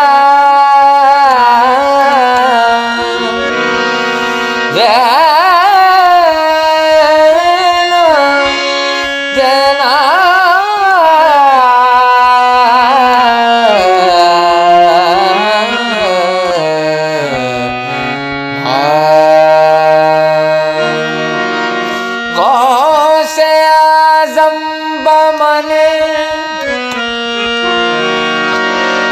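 Qawwali: a singer holding long, ornamented, gliding notes over a harmonium, with tabla. The melody sinks low about halfway through, then climbs again.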